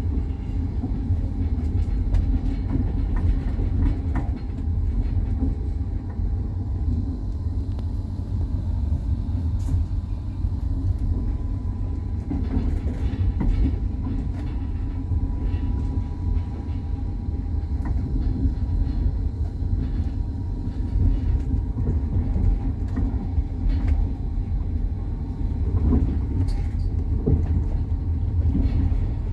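A passenger train in motion, heard from on board: a steady low rumble with the knocking of the wheels on the rails scattered through it.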